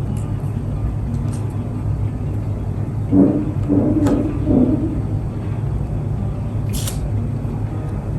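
Steady low background rumble, with a few soft handling knocks in the middle and a short scratchy rip about seven seconds in, consistent with masking tape being torn.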